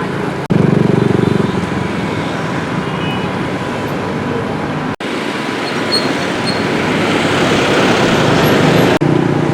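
Engines running with a steady hum and rushing noise, in short clips joined by abrupt cuts; a rush of noise builds in the later part.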